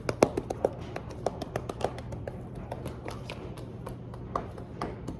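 Hands squishing and kneading sticky homemade body-wash-and-shampoo slime: a run of small wet clicks and pops, thickest in the first two seconds and then sparser.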